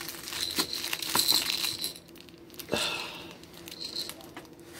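Close crinkling and rustling with a few light clicks, in a spell of about two seconds at the start and a shorter one a little before the three-second mark, over a faint steady hum.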